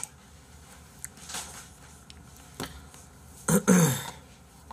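A man clears his throat with a short, gruff burst about three and a half seconds in, with a few faint clicks and a knock before it.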